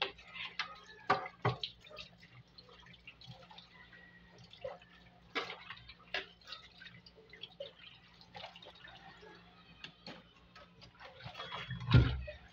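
Hand-washing in a stainless steel sink: water dripping and splashing, with many small clinks and knocks of items against the steel, and one louder clunk near the end.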